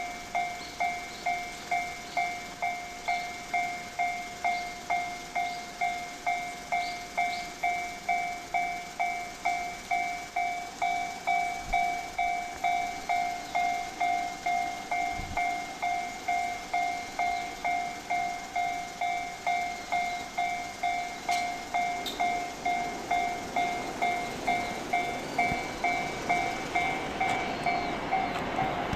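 Japanese railway level-crossing warning bell ringing, a two-pitch electronic ding repeating about twice a second. Near the end a rising rush of noise builds over it as a train comes through.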